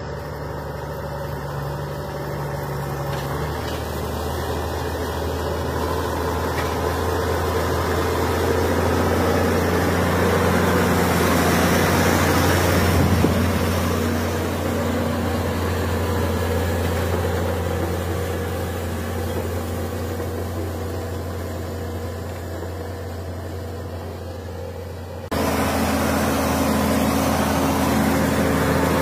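John Deere 6900 tractor's 6.8-litre six-cylinder diesel engine running steadily as it pulls a heavy plough through hard soil. The low drone grows louder toward the middle, eases off, then jumps suddenly louder a few seconds before the end.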